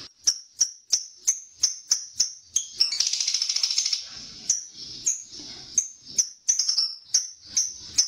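Lovebird calling with short, sharp, high-pitched chirps at about three a second. About three seconds in it breaks into a brief rapid chattering trill, then goes back to single chirps.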